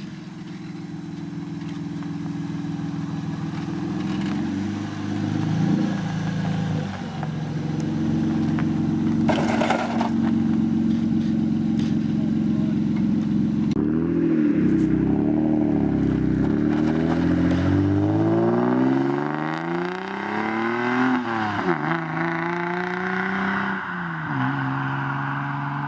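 Toyota Supra's engine running, first at fairly steady revs, then blipped a few times. It then accelerates, revs climbing and dropping sharply at two gear changes, on a test drive after an oil catch can was fitted.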